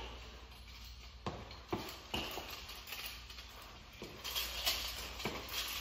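A few light knocks and clicks, scattered at uneven gaps, with some faint rustling in a small room.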